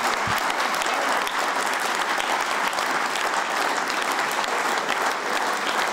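An audience applauding, a steady dense clapping.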